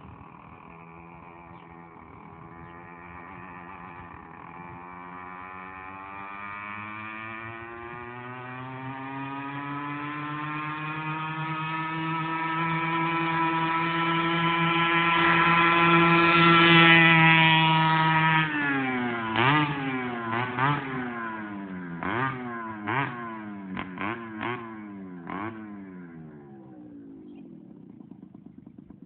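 Small 49cc two-stroke engine with a tuned pipe, driving a motorized wheelchair: its pitch climbs steadily as it accelerates and gets louder, peaking about two-thirds of the way through. The pitch then drops sharply and the engine is revved up and down about eight times in quick succession while fading away.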